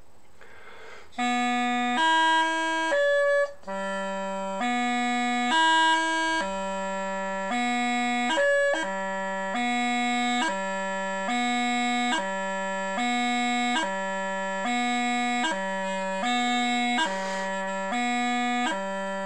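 Bagpipe practice chanter playing a slow, even exercise about two notes a second: a repeated move from B down to G, each change cut by a short, high E gracenote blip.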